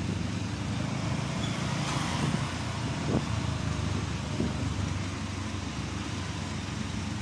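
Motorcycle engine running steadily while riding in light street traffic, with road and wind noise and a few brief swells.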